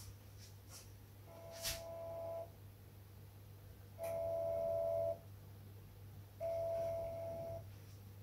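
Yi Dome Guard camera's pan-tilt motor whining three times, about a second each, as the dome turns to track movement.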